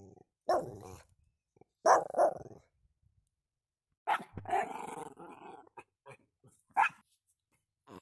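Pomeranian making short barks and growly vocalizations in separate bursts: one about half a second in, two close together near two seconds, a longer growly one around four to five seconds, and a short sharp bark near seven seconds.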